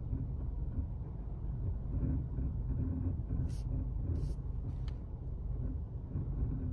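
Skoda Octavia A8 cabin noise while driving, a steady low rumble of road and engine, with three short high-pitched squeaks around the middle, which the driver puts down to the brakes.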